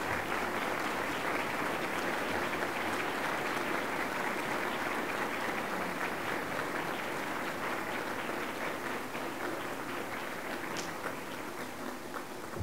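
Audience applauding steadily in a large hall, easing off a little near the end.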